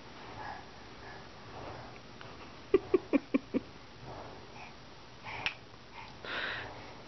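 Plastic toy blocks clapped together by a baby: a quick run of about five sharp knocks in under a second, about three seconds in. A short baby vocal sound follows near the end.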